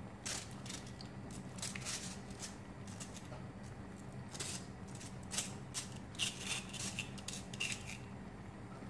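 Cooked macaroni being scraped and shaken out of a stainless-steel mesh strainer into a pan of cream sauce: a run of irregular scrapes and clicks of pasta and hand against the wire mesh and the metal rim, over a steady low hum.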